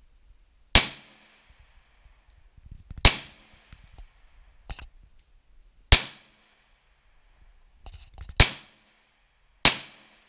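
Smith & Wesson M&P 2.0 pistol firing five single shots, spaced one to three seconds apart, each a sharp crack with a short echoing tail. A fainter sharp crack falls between the second and third shots.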